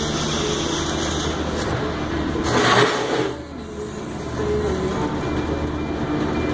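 Steady machinery hum of workshop background noise, with a louder hissing surge about two and a half seconds in that then drops away.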